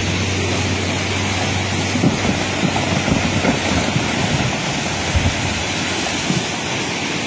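Steady rushing noise of a muddy river in flood, with scattered low knocks and thuds through the middle of the stretch. A low engine hum from a wheel loader fades out about two seconds in.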